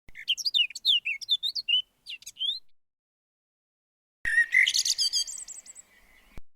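Small birds chirping in quick, high, rising and falling notes: a burst of about two and a half seconds, a pause, then a second burst about four seconds in that starts and cuts off abruptly.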